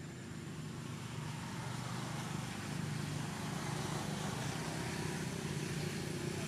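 Low, steady engine hum of a motor vehicle, growing louder over the first few seconds and then holding.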